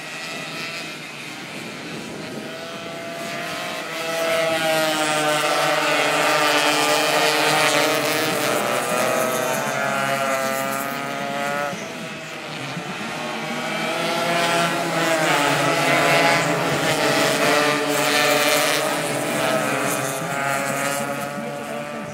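A pack of Suzuki AX100 single-cylinder two-stroke racing motorcycles running flat out past the track side, several engine notes overlapping and shifting in pitch. The sound swells as groups of bikes pass, about four seconds in and again at about fourteen seconds, dipping between.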